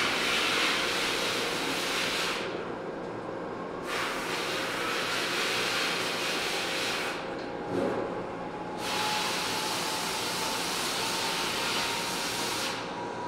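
Metal lathe machining a small screw under flood coolant: the coolant spray hisses in three long spells with quieter gaps between. Under it runs a steady machine hum and a faint whine that rises slowly in pitch.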